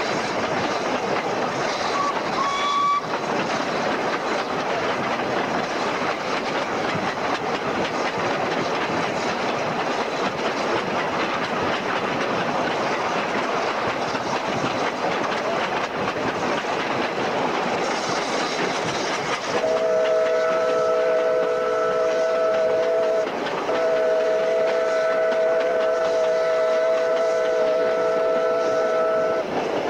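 A narrow-gauge steam train's carriages running along the track, heard from an open carriage window. About two-thirds of the way through, a steam whistle sounds a chord of several notes in two long blasts, about four and six seconds long, with a brief break between them.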